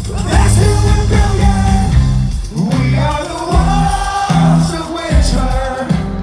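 Rock band playing live through a big stage PA, heard from the crowd: a sung lead vocal over drums and bass, with one long held, wavering note in the middle.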